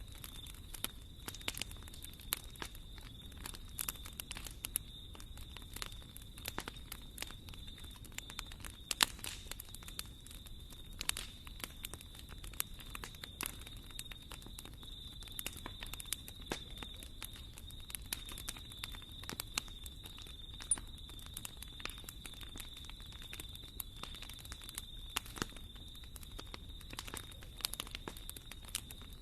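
Fire crackling in a fireplace: constant irregular sharp pops and snaps over a low steady rumble, with a faint steady high whine running underneath.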